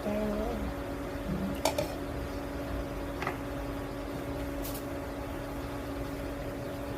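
Steady mechanical hum of a running kitchen appliance or fan, with three light clicks of kitchen utensils between about two and five seconds in.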